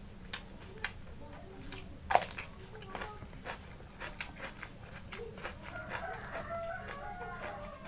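Close-up eating sounds of a man eating rice-field snails with rice: a string of sharp mouth clicks and smacks as he chews, the loudest about two seconds in. A wavering pitched sound comes in over the last couple of seconds.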